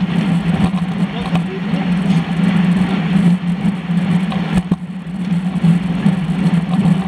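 Wind and road noise on a bicycle-mounted action camera riding in a racing bunch: a steady low hum with rushing noise over it, and riders' voices now and then. A single sharp knock a little before five seconds in.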